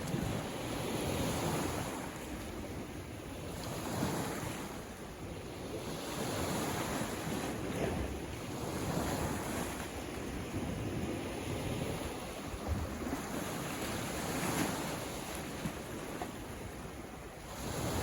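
Ocean surf: waves breaking and washing in one after another, a continuous rush that swells and falls back every few seconds.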